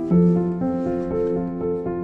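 Background music: gentle keyboard or piano notes held and changing every half second or so.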